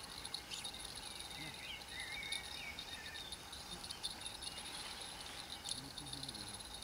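Insects, crickets by the sound of it, chirring steadily in a high, even drone, with a few short warbling chirps about two seconds in.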